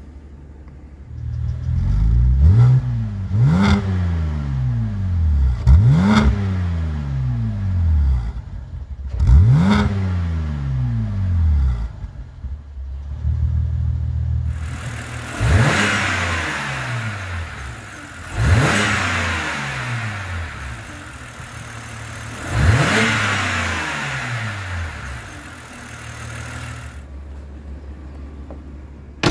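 2007 BMW Z4 3.0si's naturally aspirated 3.0-litre inline-six idling and being blipped seven times, each rev rising quickly and falling back to idle. The first four are heard from inside the cabin and the last three from behind, at the twin exhaust tips, where they sound brighter and raspier.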